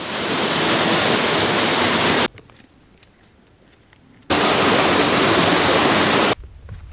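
Loud, steady rush of a waterfall, in two stretches of about two seconds each, broken by an abrupt cut to a much quieter passage in the middle.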